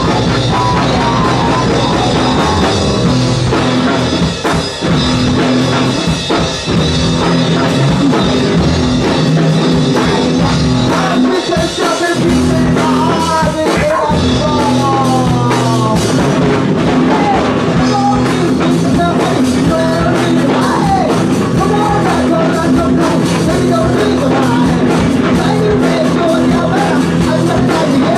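Live rock band playing loud: electric guitar, drum kit and keyboard, with singing at times.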